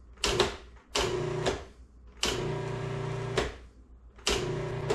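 An old countertop food processor pulsed four times on dry flour, each a short burst of motor whir that starts and stops sharply; the third pulse runs longest, about a second.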